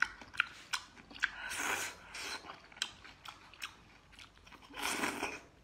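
A person chewing and biting food pulled off a skewer, close to the microphone: a string of short, sharp crunchy clicks with two longer, wetter chewing stretches, about a second and a half in and near the end.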